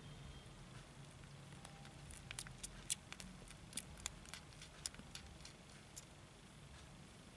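Kittens suckling at their nursing mother cat: a run of small, sharp clicking and smacking sounds for about four seconds in the middle, over a faint low hum.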